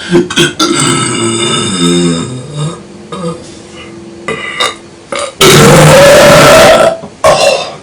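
A young man burping several times: a long, wavering voiced burp in the first few seconds, then, about five and a half seconds in, a very loud, rasping burp lasting about a second and a half that overloads the recording, and a short one just after.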